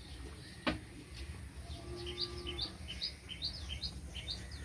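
Small birds chirping: a rapid run of short high chirps in the second half, over a low background hum. A single sharp knock sounds just under a second in.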